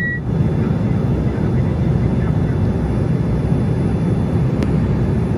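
Steady in-flight cabin noise of a Cessna Citation CJ3 jet: its two rear-mounted Williams FJ44 turbofans and the rush of air over the fuselage, heard from inside the cabin. There is a short high beep right at the start and a faint click about four and a half seconds in.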